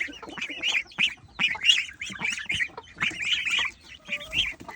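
A free-range poultry flock calling, many short, high squawks and chirps overlapping one another.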